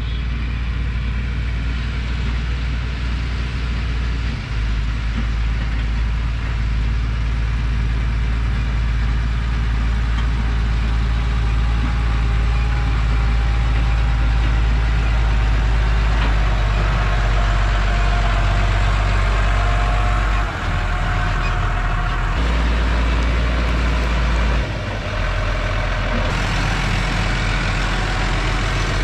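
New Holland tractor's diesel engine running steadily as it drives up pulling a loaded sugarcane wagon, with its note shifting briefly a few times near the end.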